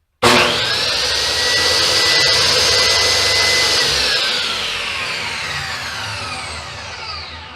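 Kobalt 15-amp 10-inch table saw's motor switched on, coming up to speed almost at once with a loud, high whine and running fairly smooth without cutting. After about three and a half seconds it is switched off and winds down, its whine falling steadily in pitch as it fades.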